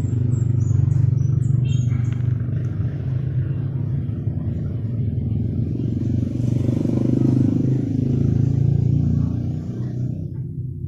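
An engine running steadily: a low rumble that swells and eases a little, and drops slightly near the end.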